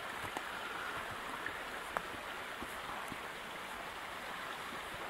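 A small woodland stream running steadily, with a few faint clicks, the sharpest about two seconds in.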